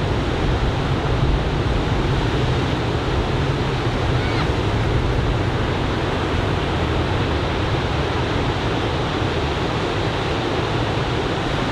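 Surf from a typhoon swell breaking on a sandy beach: a steady rush of waves, with some low wind rumble on the microphone.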